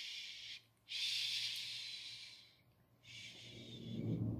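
A woman shushing: long, breathy "shh" sounds, three in a row with short breaks between them.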